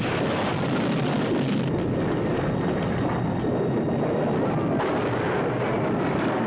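Continuous loud roar and rumble of an airship explosion and fire, a soundtrack effect, with a brighter hiss joining about five seconds in.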